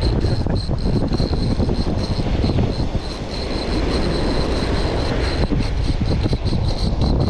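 Strong wind buffeting the microphone as a dense, steady low rumble, with breaking surf beneath it. A faint high ticking pulses several times a second throughout.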